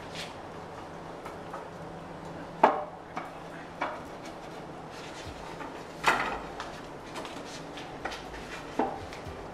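Wooden knocks and clunks of pine log rails and bed slats bumping together as they are fitted into place, a handful of sharp knocks with the loudest about two and a half seconds in and about six seconds in.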